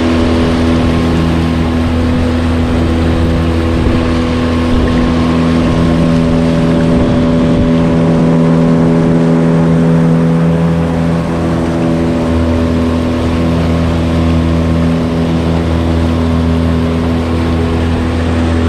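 Outboard motor of an aluminium riverboat running at a steady cruising speed, an even drone with the rush of water and spray over it.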